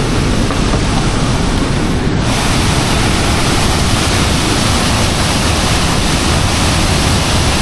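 Steady, loud rush of a powerful waterfall close by, turning brighter and hissier about two seconds in.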